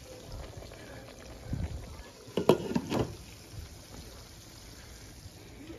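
Chicken pieces frying in hot oil in a pan: a steady, faint sizzle, with a few knocks and clatters about two and a half to three seconds in.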